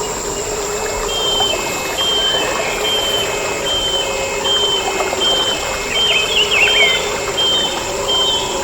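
Tropical rainforest ambience: a steady high insect drone, a run of short, evenly spaced high notes, and a brief warbled call about six seconds in.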